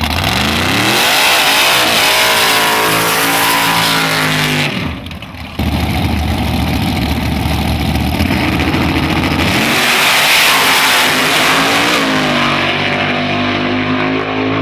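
Modified drag-race engines at high revs: a race truck's engine revs up hard, then from about five seconds in there is a heavy, steady engine rumble. About ten seconds in, two race engines go to full throttle, and their pitch climbs steadily as they accelerate away.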